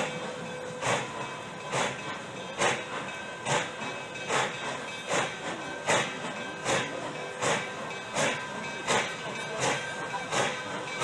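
Exhaust of Nickel Plate Road 765, a 2-8-4 Berkshire steam locomotive, chuffing under load, a little more than one chuff a second and slowly quickening as it gathers speed. A steady steam hiss runs under the chuffs.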